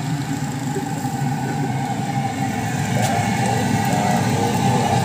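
A vehicle engine idling with a steady, even low hum.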